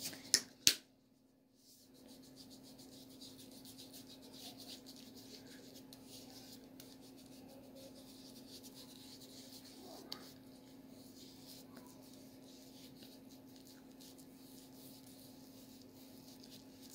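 Cotton pad wet with micellar water rubbing and wiping over facial skin, a faint fine scratchy rustle over a steady low hum. Two sharp clicks come in the first second, the loudest sounds here.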